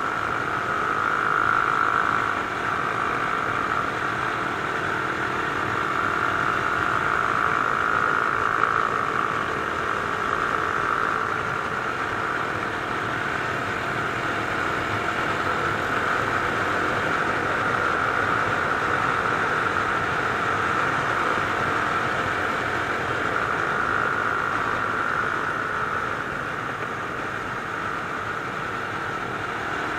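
Mash Cafe Racer 250's single-cylinder engine and exhaust running at a steady cruise, heard from on board with wind noise over the microphone. It eases a little quieter near the end.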